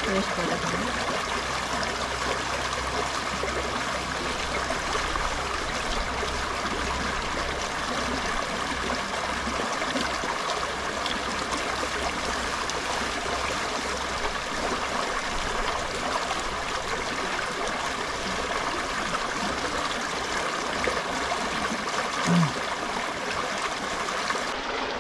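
Shallow mountain stream running over rocks beside the microphone: a steady, even rush of water, with one brief low sound near the end.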